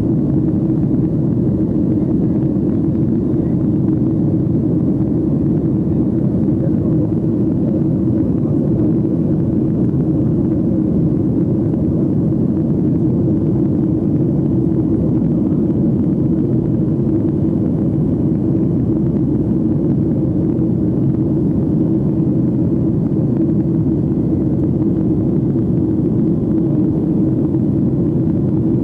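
Steady in-flight cabin noise of a Boeing 757-200, heard from a passenger window seat: jet engine and airflow noise. It is a constant low drone with a steady hum in it, and it does not change in level.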